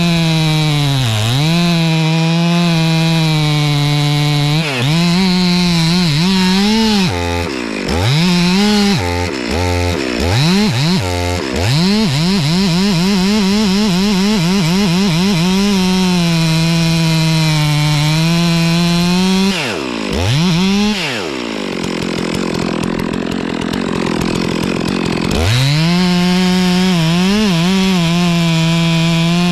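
Pressure washer running, its motor note dipping and rising again and again, with a few seconds of rapid wavering near the middle. About two-thirds through it drops to a lower, hissier sound for a few seconds, then climbs back to its usual pitch.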